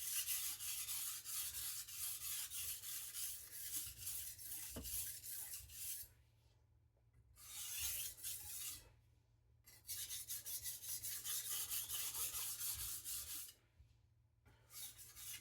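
Steel knife blade stroked rapidly back and forth on a coarse whetstone with only the blade's own weight, giving a fast, even scraping rasp. The strokes stop briefly three times.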